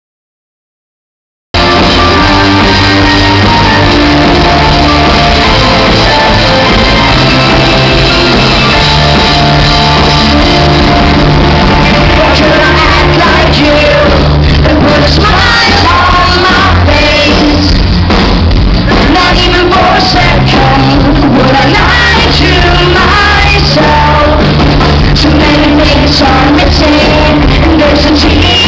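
Rock band playing live with electric guitars, bass and drums, and a woman singing lead, her voice clearest in the second half. The sound cuts in about a second and a half in and stays loud throughout.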